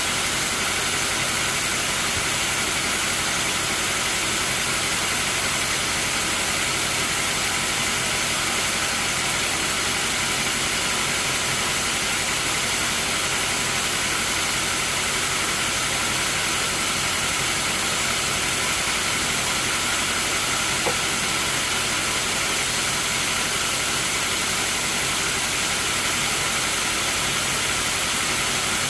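Sawmill machinery running steadily: a constant, unchanging mechanical noise with a hiss over it and a faint hum.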